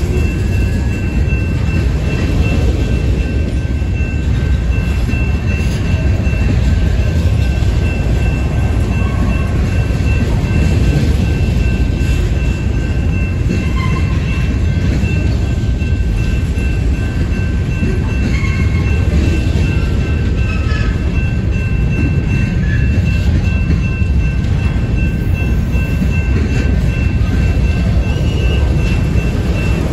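Covered hopper cars of a grain train rolling past close by: a steady, loud rumble of steel wheels on rail. A faint steady high whine runs throughout, with scattered short squeaks from the wheels.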